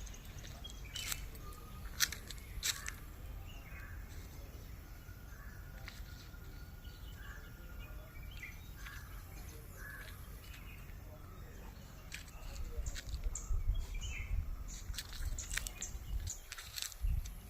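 Outdoor ambience of scattered short bird chirps and calls, one held whistle-like note a few seconds in, over a steady low rumble, with a few sharp clicks.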